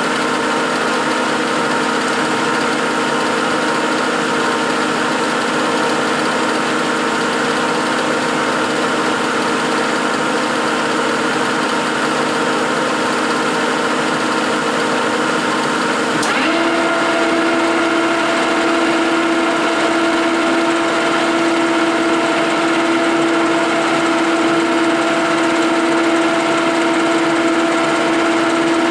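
1956 Herbert No. 4 capstan lathe running, a steady mechanical hum with a whine of several fixed tones. About sixteen seconds in there is a click and the whine changes to a different, stronger pitch that then holds steady.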